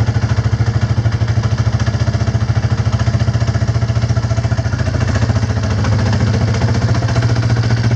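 Yamaha Warrior 350's single-cylinder four-stroke engine idling steadily with an even, rapid pulse, running on a freshly replaced intake manifold.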